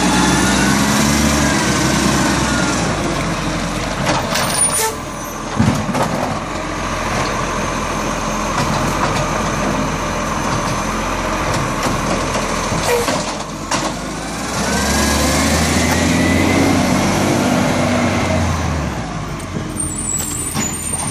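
ACCO side-loader garbage truck's engine revving twice to drive the hydraulic lifting arm as it raises and empties a wheelie bin, with sharp knocks as the bin and arm bang, and a short air-brake hiss near the end.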